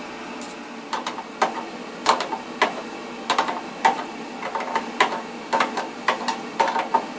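Steel wrenches clicking against the metal nut and fitting while a braided flexible water hose is tightened onto a water-heater pipe: short sharp metal clinks, irregular, about two a second, starting about a second in.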